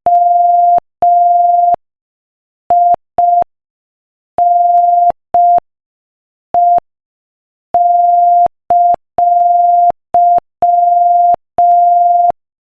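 Morse code sent as a single steady mid-pitched beep at 5 words per minute, short dits and long dahs keyed in groups with silent gaps between letters.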